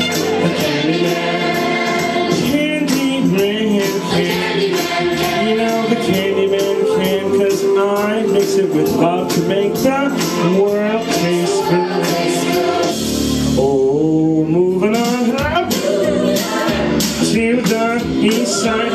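Gospel-style song with several voices singing like a choir over a steady beat with tambourine, a male voice singing into a handheld microphone. The voices drop out briefly about two thirds of the way through, then come back.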